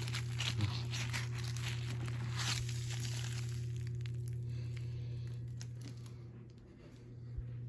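Crinkly, crackling rustle of dry dirt and debris being shaken out onto carpet, thinning out after about three seconds, over a steady low hum.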